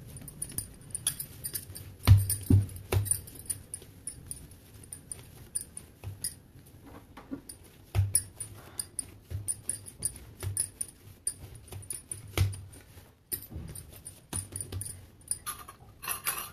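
Hands kneading and pressing a soft, oiled bhatura dough on a stone board: irregular soft thumps as the dough is pushed down, with bangles clinking lightly at the wrists.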